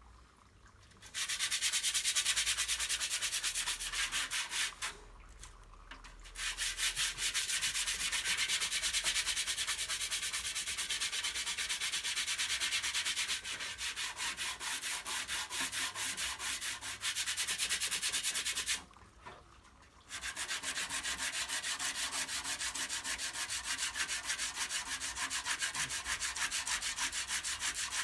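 Sandpaper dry-sanding cured automotive body filler in rapid back-and-forth scraping strokes, stopping briefly twice.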